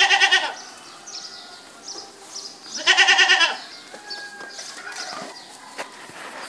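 Young goat bleating twice, about three seconds apart: two loud, quavering, high-pitched bleats of about half a second each, with fainter calls between.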